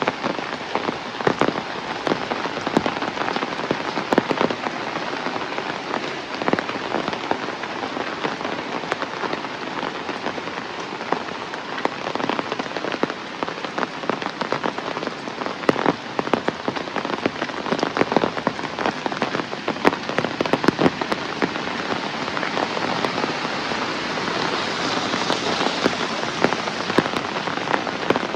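Heavy rain falling steadily: a dense hiss of rain with many sharp, close drop hits on surfaces throughout.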